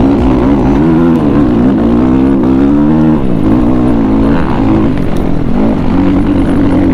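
Dirt bike engine running under way on a rough dirt track, its pitch rising and falling as the rider works the throttle, over a low rumble.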